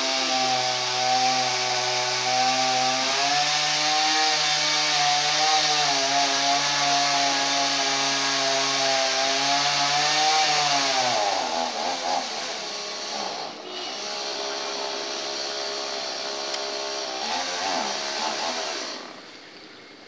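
Chainsaw running at high revs while cutting wood, its pitch stepping up slightly a few seconds in. From about halfway the pitch dips and wavers, and the saw stops shortly before the end.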